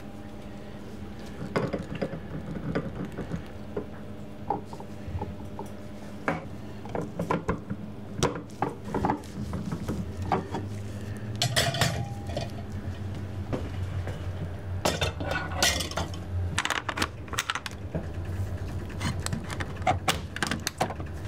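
Kitchen utensils and containers clinking and clattering in scattered knocks, with clusters of ringing clinks near the middle and again a few seconds later, over a steady low hum.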